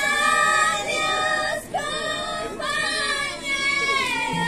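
A group of Pallas, the women singer-dancers of the Andean Inca dance, singing together in high, shrill voices. They hold long notes in short phrases of about a second each.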